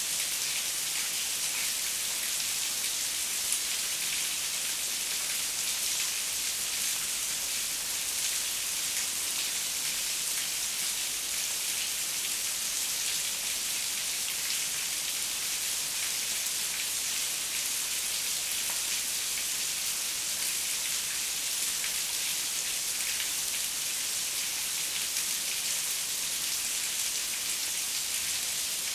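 Heavy rain falling steadily, an even hiss with no thunder.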